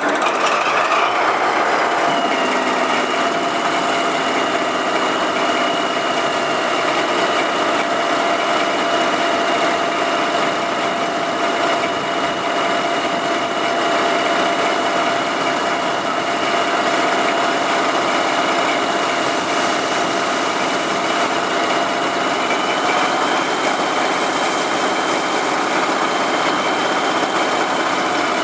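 Diesel engine of a Harzkamel narrow-gauge diesel-hydraulic locomotive (HSB class 199.8, rebuilt from a DR V100), idling steadily. Its running carries a steady high whine.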